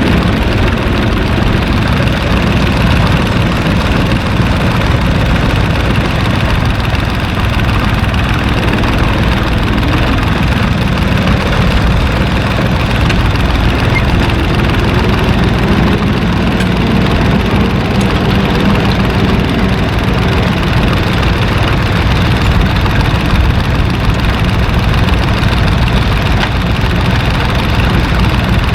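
Heavy tractor engine running steadily at a low, even speed.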